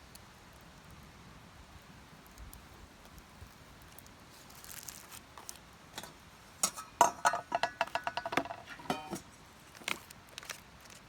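Metal cookware clinking: a quick run of sharp, ringing taps, as of a utensil knocking against a pot, after a brief rustle, with a few single clicks near the end.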